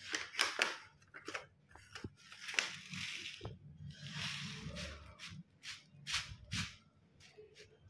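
Fish-food packet rustling and crinkling as it is handled and tipped to shake out food, with scattered small clicks and two longer rustles about two and a half and four and a half seconds in.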